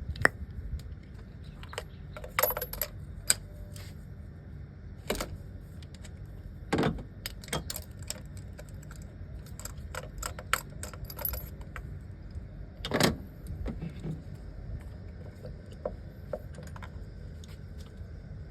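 Irregular metallic clinks and knocks of hand tools on the engine as spark plug number 2 is taken out to check its tip, over a steady low background hum.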